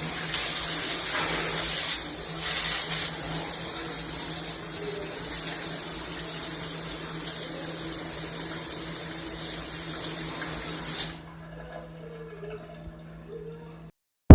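Water spraying from a filtered high-pressure shower head, a steady hiss that cuts off abruptly about eleven seconds in.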